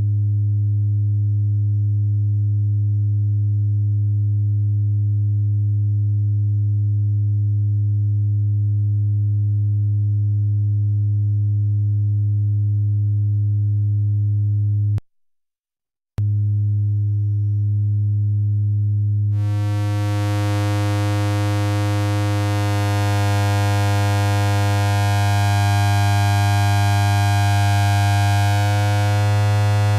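Schlappi Engineering Angle Grinder analog eurorack oscillator in quadrature VCO mode, putting out a steady, nearly pure low sine tone. The tone cuts out for about a second midway, comes back, and a few seconds later turns bright and buzzy with many overtones as the waveshape changes.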